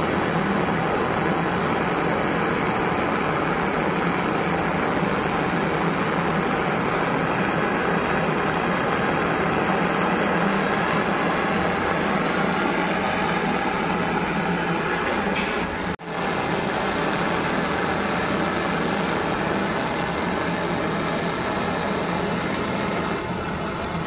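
Brazing torch flame hissing steadily as the copper pipe joints of a window AC cooling coil's header are brazed, with a momentary break about two-thirds of the way through.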